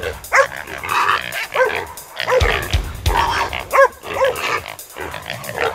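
Hunting dogs barking and yelping in short, repeated calls while they hold a wild boar, over background music with a steady beat.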